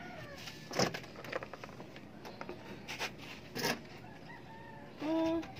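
Chickens clucking, with a short held call near the end as the loudest sound, and a few light clicks and knocks of plastic clothespins and a tin can handled on a plastic drum lid.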